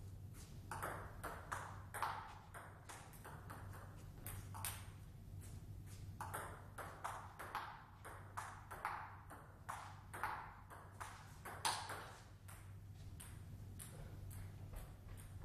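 Table-tennis rally: a celluloid ball clicking off the bats and the table, one or two sharp pings a second at an uneven pace. One bat is a Hallmark Aurora blade with Meteor 8512 OX (no-sponge) rubber.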